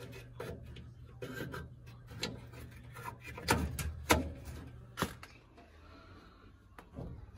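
Plastic clicks and rubbing as a power adapter is plugged into a power strip and the cables around it are handled, with a few sharper knocks near the middle.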